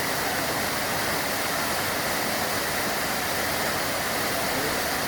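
Steady rush of a waterfall and fast river water, an even noise that does not let up.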